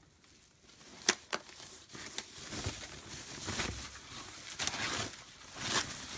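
Rustling and crinkling of the thin foam packaging wrap around a flat-screen TV as it is handled and pulled away, with a few sharp clicks between one and two seconds in.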